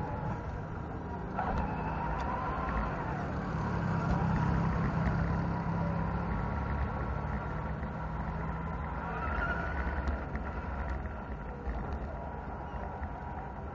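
Radio-controlled Toyota Land Cruiser 40 driving over concrete, heard from its onboard camera: the electric motor and gears whine, rising and falling in pitch with the throttle, over a low rumble of tyres and road. A passing tuk-tuk adds engine rumble in the middle.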